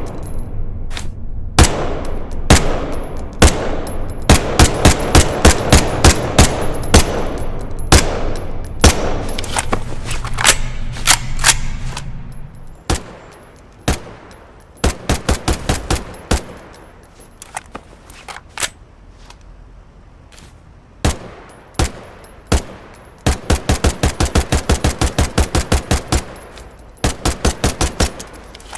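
Ruger 10/22 .22 LR semi-automatic rifle firing strings of shots, each a sharp crack. Shots come steadily in the first half, thin out and quieten in the middle, then come quickly, about four or five a second, in a burst near the end.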